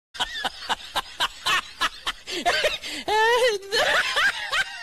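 Comic laughter sound effect: a cackling laugh in quick repeated bursts, then a long high wavering laugh about three seconds in.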